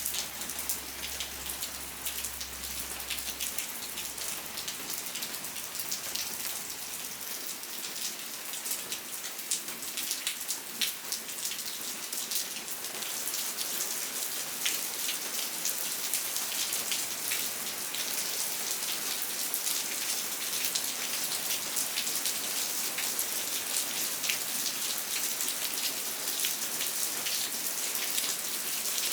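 Steady rain falling on a surface: an even hiss with many small drop ticks.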